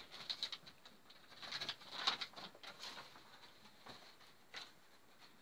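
Faint, scattered rustling and light tapping of cardboard, paper and small toy pieces being handled, in short clusters with a busier stretch about two seconds in.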